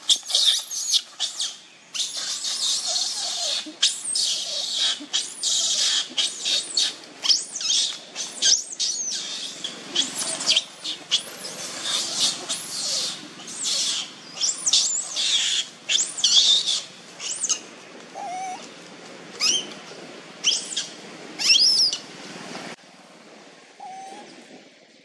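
Baby long-tailed macaque crying and screaming: a rapid run of loud, high squealing calls that rise and fall in pitch, thinning out and fading near the end.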